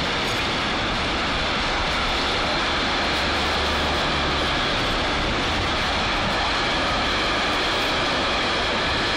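Container freight train's wagons rolling past at steady speed: an even, unbroken noise of wheels on the rails.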